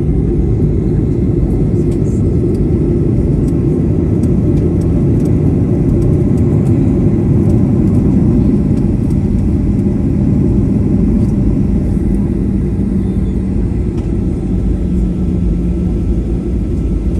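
Steady low rumble inside the cabin of a Southwest Airlines Boeing 737 taxiing after landing, with a few faint clicks and rattles.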